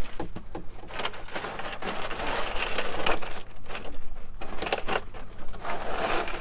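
A fish being handled inside a plastic cooler: irregular rustling and scraping with small knocks.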